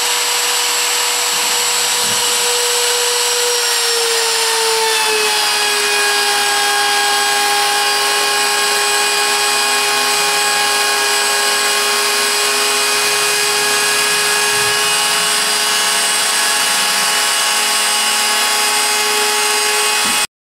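CNC router spindle running and cutting wood: a steady high whine over a cutting hiss, its pitch dipping slightly about four to five seconds in. It cuts off suddenly near the end.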